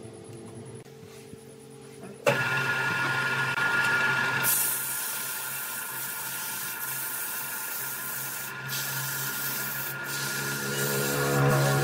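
Sandpaper held in a gloved hand rubbing against a wooden vase spinning on an electric wood lathe, a steady loud hiss that starts suddenly about two seconds in, over the steady hum of the lathe's motor.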